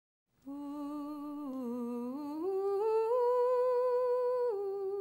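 A person humming a slow melody in long held notes, starting about half a second in: a low note that dips, then steps up twice to a long high note, dropping back down near the end.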